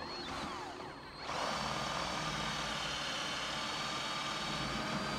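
Cordless drill spinning, then running steadily with a high whine from about a second in. It is being used to clear out the weatherstrip groove of a PVC window sash.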